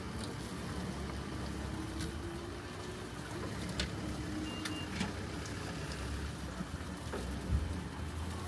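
Steady low rumble of passing traffic mixed with the sizzle of chicken skewers (yakitori) grilling over charcoal, with a few light clicks.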